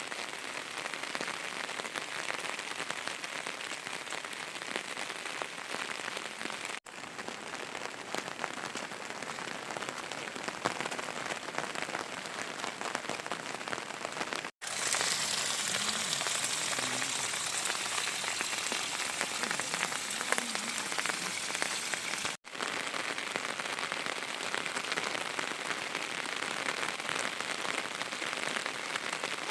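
Steady rain falling on surfaces, an even hiss broken by three very short gaps where takes are joined. The rain is louder and brighter after about halfway.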